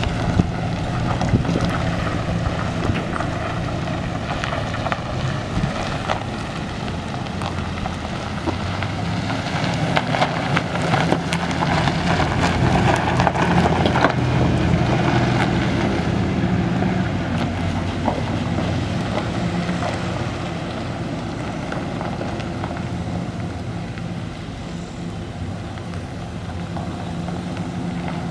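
A 2010 Chevrolet Silverado 2500HD's 6.0-litre V8 gas engine running as the pickup drives over loose gravel, with a steady low engine note and a scatter of small crunches and clicks from the tyres. It is loudest about halfway through as the truck passes close, then fades as it pulls away.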